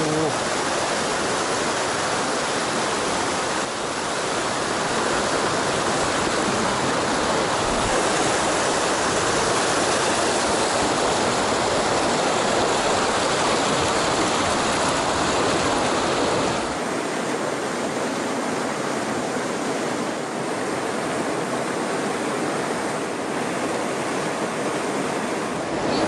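Rapids of a mountain stream: whitewater rushing over boulders in a steady roar. About 17 seconds in it changes abruptly to a slightly quieter, thinner rush.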